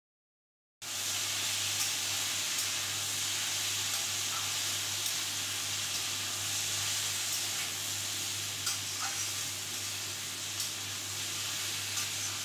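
Taro stolons and potato pieces sizzling steadily in oil in a kadai, starting abruptly about a second in, with a few light taps of the stirring spatula in the second half. A low steady hum runs beneath.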